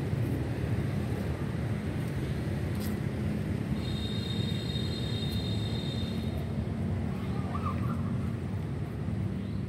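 Steady low rumble of distant city traffic. A faint high steady tone sounds from about four to six seconds in, and a short chirp comes near the end.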